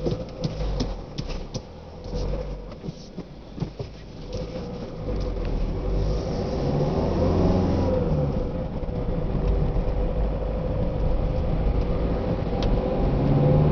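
Car engine and road noise heard from inside the cab. It starts quieter, with scattered knocks and rattles, then grows louder about five seconds in as the car accelerates, the engine note rising in pitch.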